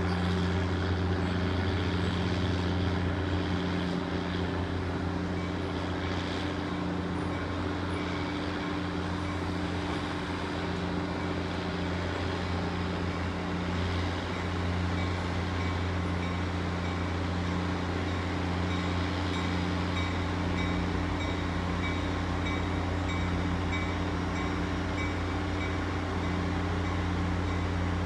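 Diesel-hauled passenger train crawling across a steel girder bridge: a steady low diesel drone with an even hum that holds level throughout.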